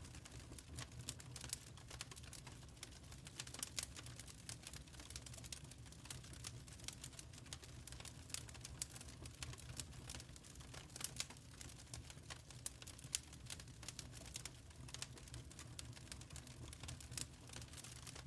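Wood fire in a fireplace crackling: irregular sharp pops and snaps over a low, steady rumble.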